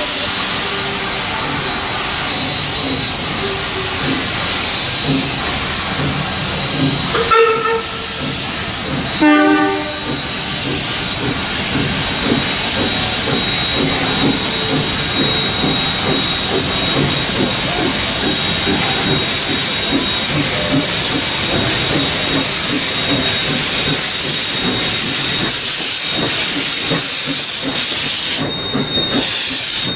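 Queensland Railways C17 class steam locomotive hissing steam steadily as it runs slowly into the platform, with two short whistle blasts about seven and nine seconds in.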